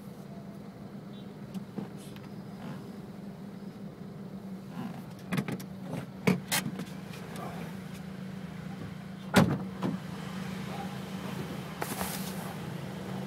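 Honda Civic cabin with the engine idling as a steady low hum, broken by a few sharp clicks and knocks around the middle and one loud knock about nine seconds in.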